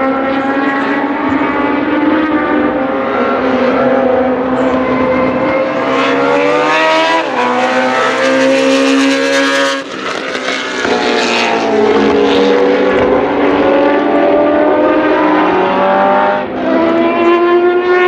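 Ford Cosworth DFL 90° V8 of a Tiga GC289 Group C2 race car at speed on track, pulling hard with its pitch rising through the revs. The sound breaks off sharply twice.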